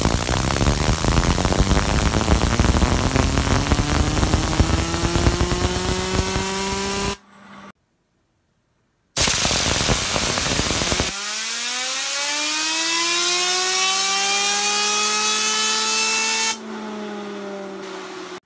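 Compressed-air blow gun blasting a fidget spinner held in a jig, spinning it up: a loud hiss of air with a whine from the spinning spinner that climbs in pitch. After a short cut to silence, a second blast starts it again; the whine rises and levels off as the air eases, then drops slightly when the air stops near the end.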